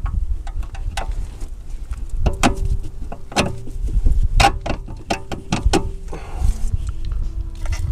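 Irregular metallic clicks and knocks as suspension parts and tools are handled around a car's front brake disc and steering knuckle, densest in the middle, over a low rumble.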